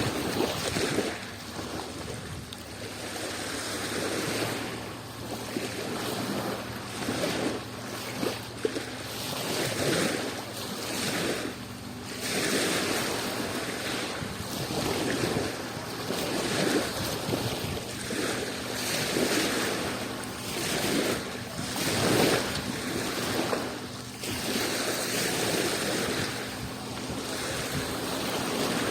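Adriatic Sea waves washing against the shore, swelling and falling back every couple of seconds.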